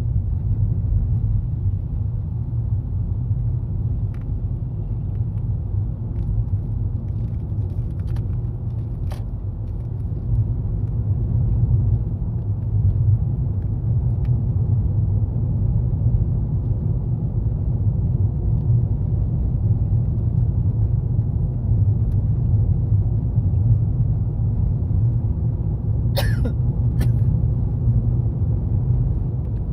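Steady road and engine rumble inside a Toyota Estima minivan's cabin as it drives, with a few faint clicks and a short, sharper crackle near the end.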